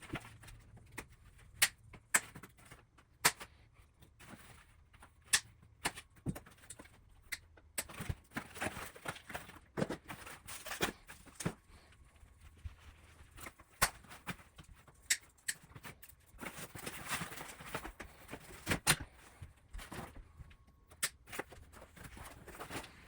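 Scattered clicks and knocks with two stretches of rustling: hands handling the e-bike frame and its packaging.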